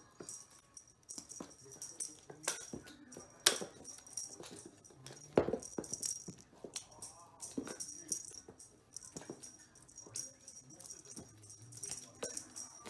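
A cat leaping after a cat-teaser wand on a wooden floor: quick scuffs and thumps as it lands, the loudest about three and a half and five and a half seconds in, with a light jingling rattle throughout.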